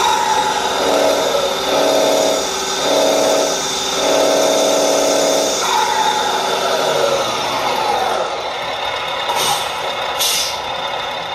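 Electronic sound module in an RC Scania R770 truck playing a diesel engine sound through its speaker: revved in several short blips, then the turbo whistle falling away as the throttle is released. The turbo whistle only plays once the engine sound has been revved long enough. Two short air hisses near the end.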